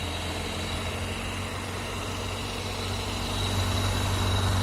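Electric radiator cooling fan of a VAZ-2112 running after repair, growing louder over the first three seconds or so as it spins up, then holding steady. It runs without the earlier whistle: the repaired fan motor makes no stray noises.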